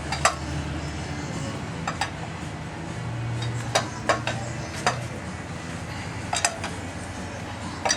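Lug wrench clinking against the wheel's lug nuts as they are tightened down by hand: a handful of sharp metallic clinks at irregular intervals.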